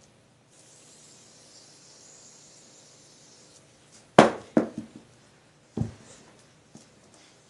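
A few short, sharp knocks over a faint steady hiss. The loudest comes about four seconds in, with two more within the next two seconds and a faint one near the end.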